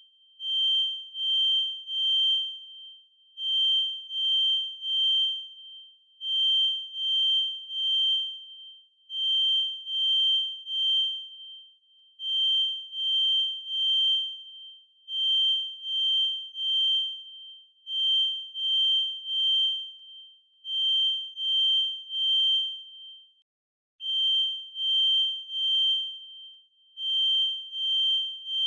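Kidde FireX i4618AC smoke alarm's piezo horn sounding its full alarm: a shrill, high, single-pitched beep in groups of three, each group followed by a short pause and repeating about every 3 seconds. This is the Temporal-3 evacuation pattern that signals smoke detected, not a low-battery chirp.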